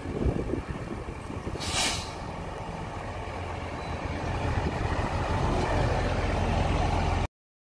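Garbage truck's diesel engine running, with one short, sharp hiss of the air brakes about two seconds in. The low engine rumble grows louder over the last few seconds, then cuts off suddenly.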